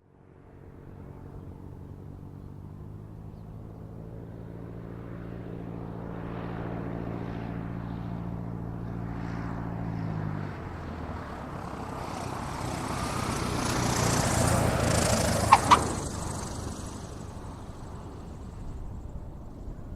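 Single-propeller airplane engine running with a steady note, which breaks off about halfway through into a rushing noise that swells to a peak, with two sharp clicks at its loudest point, and then fades away like an aircraft passing.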